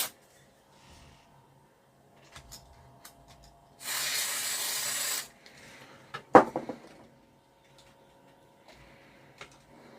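A burst of aerosol spray lasting just over a second, about four seconds in: cleaner sprayed into the radio's stiff, gunked-up potentiometers. A sharp click follows about two seconds later, with faint small clicks and handling noise around it.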